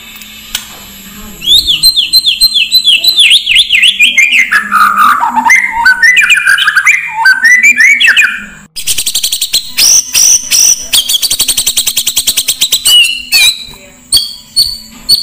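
Oriental magpie-robin song in an agitated, combative mood. A fast run of notes falls steadily in pitch, followed by varied chattering phrases, a dense rapid trill from about halfway through, and a few high whistles near the end, over a steady low hum.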